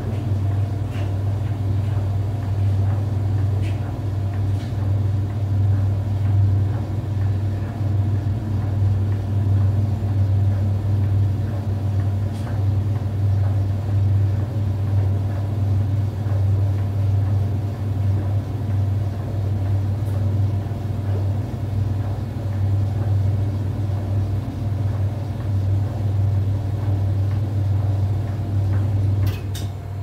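Brastemp Luxo Venezia 4 kg washing machine running with a steady low hum and rumble, which drops away near the end.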